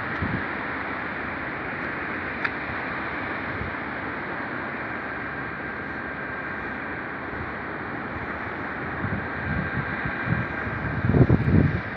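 Steady rushing of wind, with low gusts buffeting the microphone near the end.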